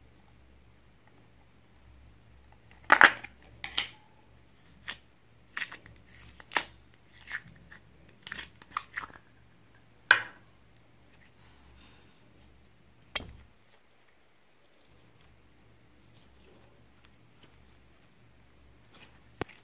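Store-bought slime being handled: a run of irregular sharp clicks and pops as it is taken from its plastic tub and pressed into a bowl of clear slime. The loudest pops come about three seconds in and about ten seconds in, and there are a few faint clicks near the end as it is stretched by hand.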